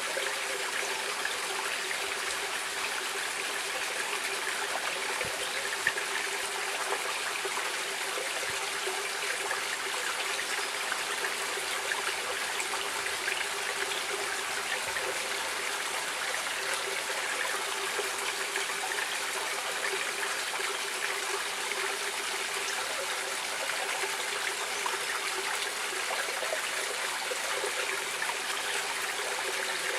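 Stream water running steadily over rocks, a constant trickling and rushing with no change.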